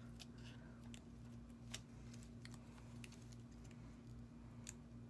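Faint, scattered small clicks and taps of paper embellishments being handled and pressed onto a scrapbook page, over a steady low hum.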